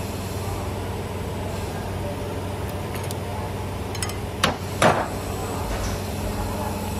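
CNC camless wire forming machine running with a steady hum while bending flat copper wire. About four and a half seconds in come two sharp metallic knocks, the second louder and ringing briefly, as the formed piece comes free of the tooling.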